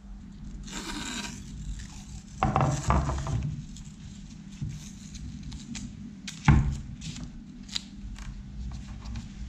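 Yellow masking tape being pulled off the roll, torn and pressed down over plastic film: rasping and crinkling in a few bursts, with a sharp knock about two-thirds of the way through and small ticks.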